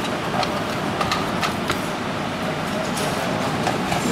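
Steady background noise with a few light clicks and knocks from a sheet-metal control-box case being handled.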